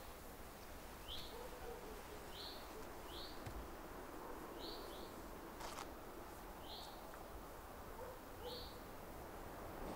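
A small bird calling with short, high chirps, roughly one a second, over a faint steady outdoor hiss; a single click a little past halfway.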